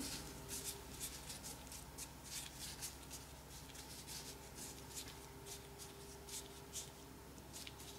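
Faint, irregular crinkling and rustling of thin disposable plastic gloves as the hands roll a ball of cookie dough between the palms.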